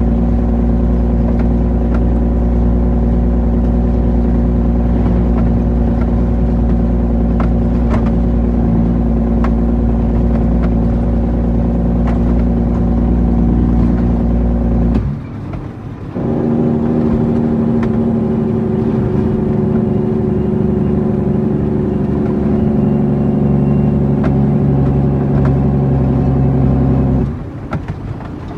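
Diesel engine of an International 9300 truck running under load. The sound drops away briefly about halfway through and again near the end, where the throttle is lifted for a gear change, and it comes back at a different pitch after the first one.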